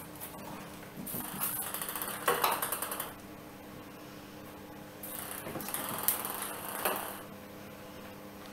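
A small hard ball clicking and rolling across a tiled floor as kittens bat it about, with light rustling. It comes in two bouts, one about a second in and the other about five seconds in.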